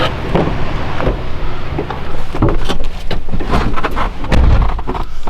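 Road noise inside a moving vehicle: a steady low rumble under a rushing hiss, with frequent small knocks and rattles.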